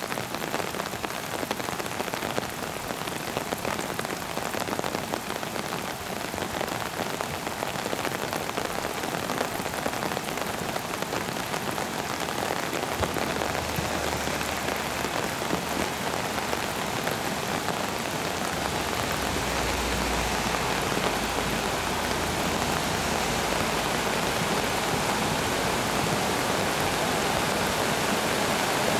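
Muddy floodwater of a mountain stream in a flash flood rushing over boulders, a dense, steady rushing that grows slowly louder. A low rumble comes in twice in the second half.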